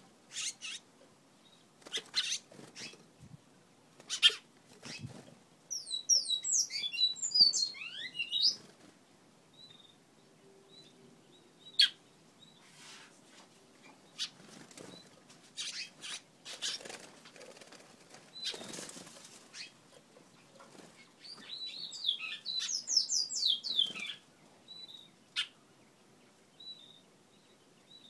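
A 13-day-old large-billed seed finch (twatwa) fledgling fluttering and flapping about an aviary in short, separate flurries of wingbeats. Two bursts of rapid, high chirping come in, about six seconds in and again about twenty-one seconds in.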